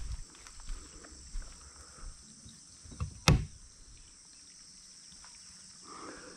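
Footsteps on soft, muddy ground, a soft thud about every 0.7 s for the first two seconds, then a single sharp knock a little after three seconds in. A steady high-pitched insect buzz runs underneath.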